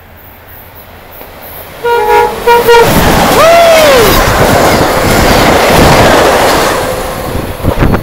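Amtrak passenger train's K5LA horn giving about three short toots about two seconds in. The train then rushes past close by with a loud rumble and wind noise.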